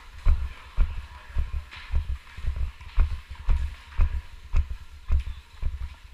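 Footsteps of hockey players walking in skates along a tunnel floor, a regular clomping about two steps a second, with heavy low thumps from the camera wearer's own steps.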